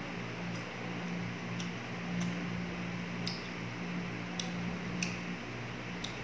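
Chewing with small sharp mouth clicks about once a second, over a steady low electric hum.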